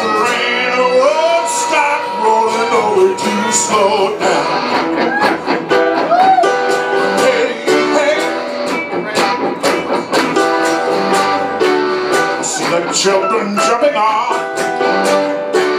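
Live acoustic band music: a man singing into a microphone over strummed acoustic guitars.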